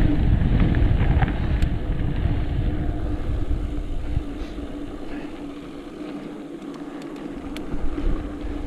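Wind buffeting the microphone of a camera riding on a mountain bike, heavy at first and easing off about halfway, with a steady low hum underneath and a few sharp clicks and rattles.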